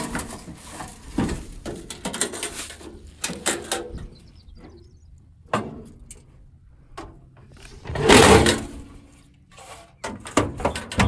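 Metal toolbox being handled: short clanks and knocks as the drawers are worked, and a louder sliding scrape about eight seconds in as a drawer is pushed back in.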